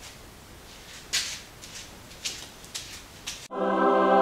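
A handful of short, soft rustles and scuffs in a quiet room, the loudest about a second in. About three and a half seconds in, calm ambient background music cuts in abruptly.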